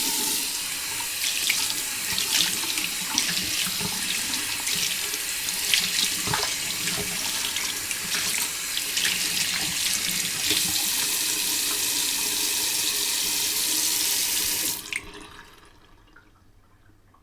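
Water tap running into a sink while hands are washed under the stream, with scattered splashes. The tap is shut off about fifteen seconds in, and the flow trails off.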